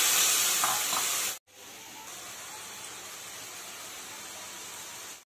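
Tamarind water hitting hot oil in a wok: a loud hissing sizzle with steam, fading over about a second and a half. After a sudden cut, the tamarind liquid bubbles with a quieter, steady sizzle.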